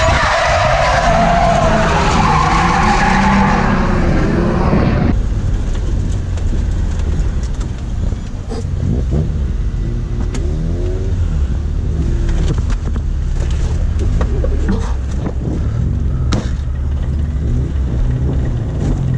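Drift car heard from inside the cabin: engine running hard with tyres squealing for about five seconds, then the sound drops suddenly to a low engine rumble as the car rolls slowly, with the engine rising and falling a few times.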